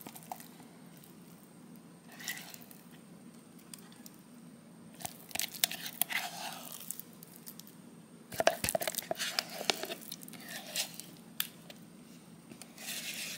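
A paper liner being peeled and torn off a tub of Greek yogurt, in several short bursts with a few clicks.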